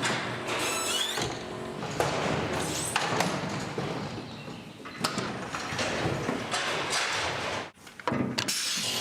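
Mechanical rattling and clattering, with sharp knocks about once a second early on and again a few seconds later; the sound breaks off for a moment near the end.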